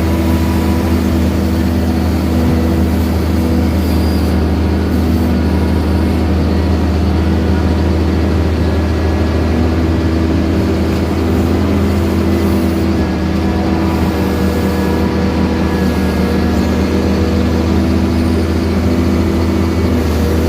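Caterpillar 320 CL excavator's diesel engine running steadily and loud while digging out a drain.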